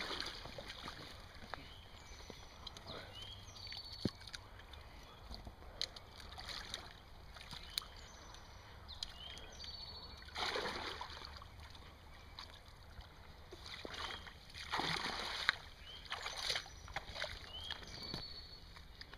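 A person in waders sloshing and splashing through shallow muddy creek water and pushing through brush, with a louder splash about ten seconds in and another about fifteen seconds in.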